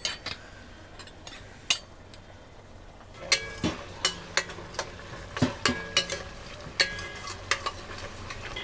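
Steel ladle stirring and scraping a thick masala paste in a stainless steel kadhai, with sharp metal-on-metal clinks coming often from about three seconds in, over a soft sizzle of the masala frying.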